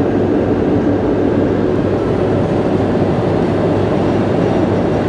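Steady engine and road noise heard from inside a vehicle's cabin while it drives along.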